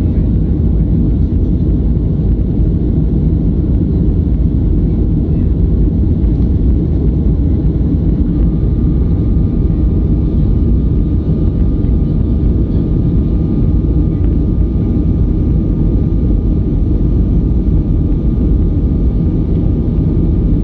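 Steady cabin noise of a Boeing 737-500 climbing after takeoff, heard inside the cabin over the wing: a loud, even low roar of its CFM56-3 engines and rushing air. A faint thin steady tone joins about eight seconds in.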